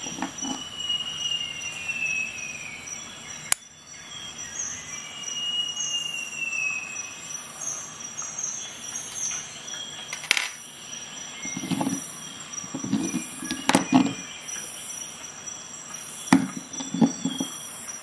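Leatherman Wave+ multi-tool being handled: sharp metallic clicks and clinks a few seconds apart, two brief falling squeaks in the first few seconds, and low rattling in the last few seconds.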